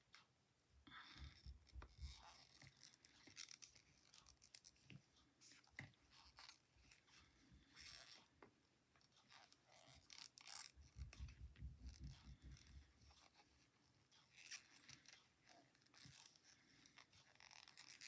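Faint, irregular clicking and rustling of knitting needles and yarn being worked by hand, with a couple of low dull bumps of handling.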